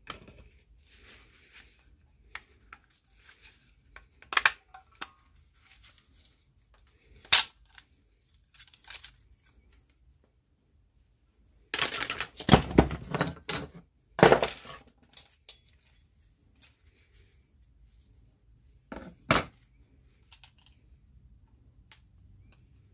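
Metal clutch parts and hand tools clinking on a workbench as a scooter clutch is taken apart: the retaining ring and steel clutch plates are removed. There are a few separate sharp clinks, with a dense burst of rattling a little past the middle.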